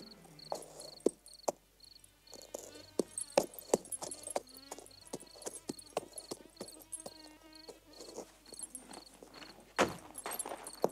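Horse's hooves clopping and shifting on hard ground as the rider halts and dismounts, with a louder thump near the end. A cricket chirps steadily behind it, about twice a second.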